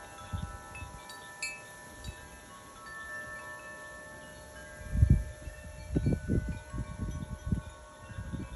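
Wind chimes ringing, many overlapping tones sounding and dying away at different times. Several low bumps come about five seconds in and again over the next couple of seconds.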